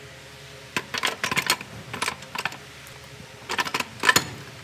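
Quick runs of metallic clicks and clinks as steel gearbox parts are handled in the open transmission housing, in two bursts, the second one loudest.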